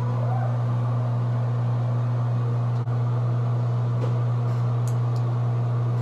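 A small electric motor appliance running steadily: a loud, even hum with an airy hiss, switched on just before and holding constant, with one brief click-like dropout about three seconds in.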